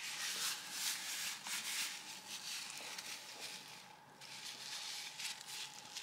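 Faint, irregular rustling and handling noise, with a brief lull about four seconds in.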